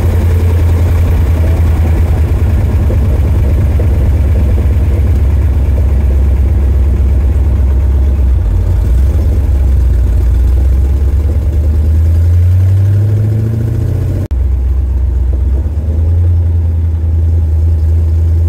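Dodge Dart hot rod's engine heard from the car as it drives: a loud, steady low drone. About twelve seconds in it rises in pitch as the car accelerates, then breaks off abruptly and carries on steadily at a lower pitch.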